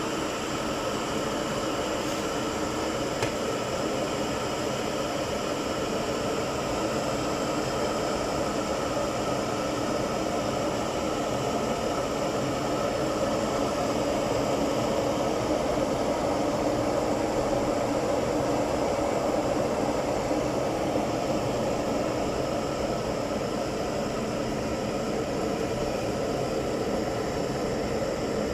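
Philips electric heater's fan running, a steady whirring noise with a faint hum that holds even throughout.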